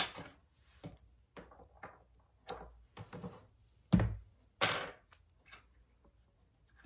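Handling sounds of small fabric tabs with metal D-rings being set down and arranged on a sewing table: a string of light taps and knocks with brief rustles. The loudest is a thump about four seconds in, followed by a short scuff.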